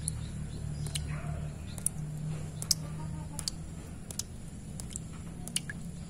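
Water drops falling one by one into a shallow puddle, giving sharp, irregular plinks, roughly one or two a second. A steady low hum runs under them.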